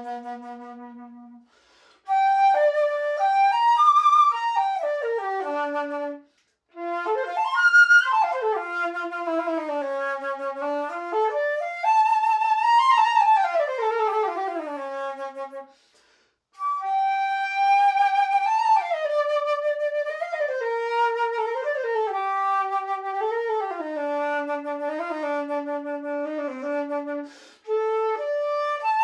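Sankyo CF301 silver concert flute, open-hole with a B foot, played solo in flowing melodic phrases. A held low note opens the passage, and short pauses for breath come about 6, 16 and 27 seconds in.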